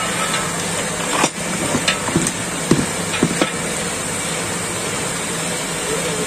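Long metal ladle knocking and scraping against a large iron kadai as a thick chicken curry is stirred, a series of sharp knocks in the first half, over a steady hiss throughout.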